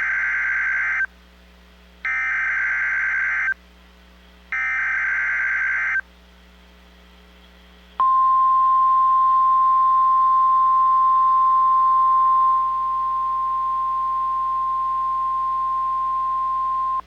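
NOAA Weather Radio Emergency Alert System activation for a tornado watch. Three short bursts of SAME digital header data, each about a second and a half long, are followed about eight seconds in by the steady single-pitch 1050 Hz warning alarm tone, which drops slightly in level partway through.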